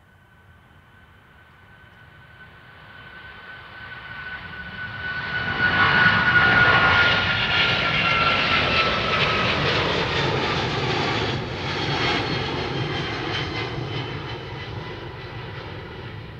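Boeing 777-200ER's twin jet engines at takeoff power as it climbs out just after liftoff. The sound swells to a peak about six seconds in, with a high whine sliding slowly down in pitch as it passes, then a rumble slowly fading as it climbs away.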